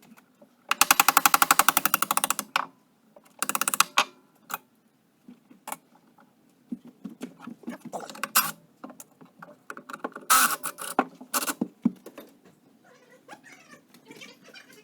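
Workshop teardown sounds of hand tools and metal parts: a fast run of clicks about a second in, another short run a little later, then scattered knocks and clinks.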